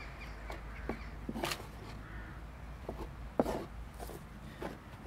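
Rye flour and water being stirred together by hand in a wooden dough trough: scattered soft scrapes and clicks, with one sharper knock about three and a half seconds in, over a low steady rumble.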